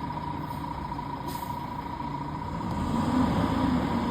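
Garbage truck engine running with a steady whine, a short hiss of air about a second in, and the engine note rising and getting louder near the end.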